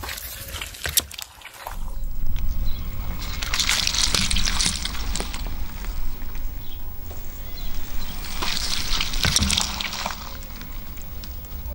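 A car tyre rolling over small water balloons and broken glass on paving stones, squashing the balloons with sloshing and crunching the glass. Two louder bursts of crunching come around four and nine seconds in, over the low rumble of the rolling tyre.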